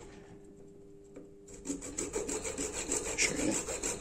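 A bare hacksaw blade, held by hand, sawing through a white plastic water pipe in a vise. A run of back-and-forth scraping strokes starts about a second and a half in.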